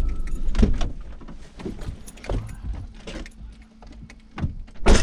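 A Ford van's engine is switched off, then comes a run of handling sounds: keys jangling, the driver's door opening, and scattered knocks and clicks. A loud thump near the end is the loudest sound.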